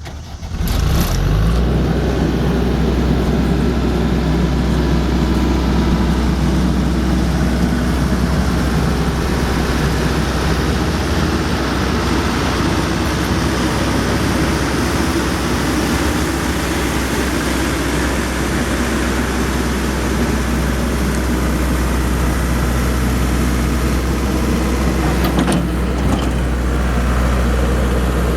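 New Holland L180 skid steer's diesel engine running steadily; the sound comes up within the first second or so and then holds at a constant speed.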